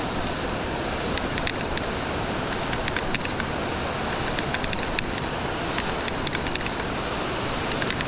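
Steady rush of a creek waterfall, with scattered light clicks and ticks over it.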